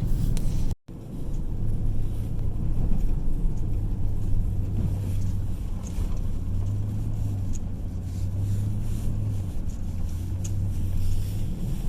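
Recovery vehicle's engine running with a steady low drone while towing a car on a kinetic rope, cutting out briefly under a second in.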